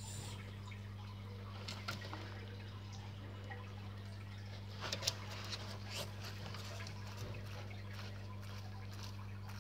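Steady low electrical hum with a few faint clicks and crackles, about two, five and six seconds in.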